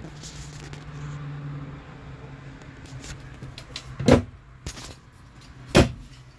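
Two sharp knocks from a wooden cabinet, about a second and a half apart, over a low steady hum.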